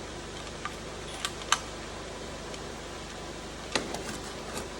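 A few short, sharp clicks and taps of small tools or parts being handled, over a steady background hum, the loudest about one and a half seconds in.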